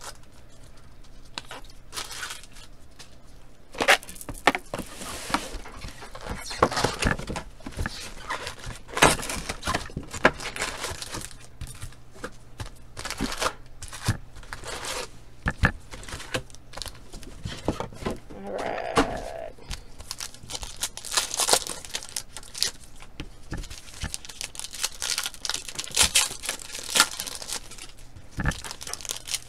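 Cardboard trading-card box being torn open and its foil-wrapped packs handled and stacked: a long, irregular run of crinkles, crackles and short rips.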